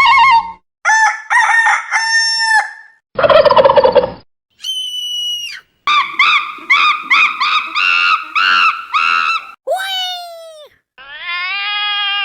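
A quick string of comic sound effects, one after another with short gaps: warbling squeaks, a buzzy blast, a high whistle, then a long run of rapid repeated warbling notes. It ends with a few falling whistle-like glides and a wavering tone.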